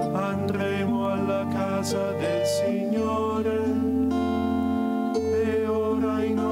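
Two friars singing a liturgical psalm into a microphone, over instrumental accompaniment with held low bass notes that change about three and five seconds in.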